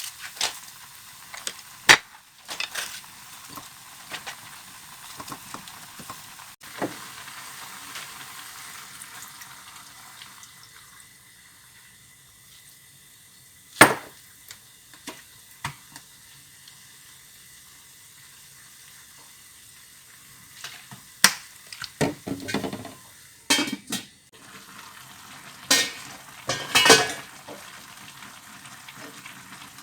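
Food sizzling in a frying pan as it is stirred, with sharp knocks and scrapes of a utensil against the pan. The loudest knocks come about two seconds in and near the middle, and a cluster of them comes toward the end.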